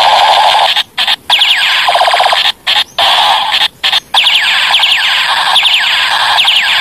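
Battery-powered toy AWM sniper rifle playing its electronic gunfire sound effect: a loud, harsh buzzing with rapid falling zaps, breaking off briefly about six times in the first four seconds, then running on.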